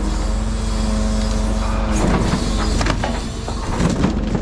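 Mercedes-Benz Arocs timber truck's diesel engine running steadily while working the Palfinger Q170Z loading crane. A steady hum breaks off about halfway through and comes back near the end, and there are a few short knocks around the middle and near the end.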